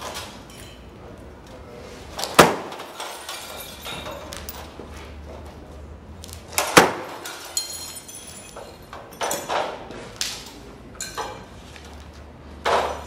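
Fluorescent light tubes being smashed on a concrete floor: two loud, sharp glass crashes about two and seven seconds in, followed by smaller clinks and knocks of glass and fittings.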